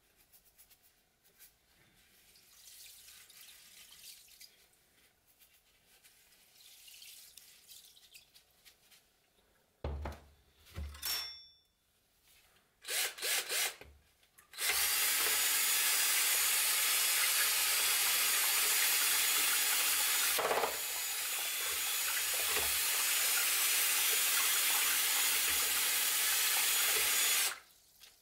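Cordless drill spinning a bent wire rod in a tub of water to stir salt in: a few short trigger blips, then the drill running steadily for about thirteen seconds, churning the water. Before that, a couple of sharp knocks.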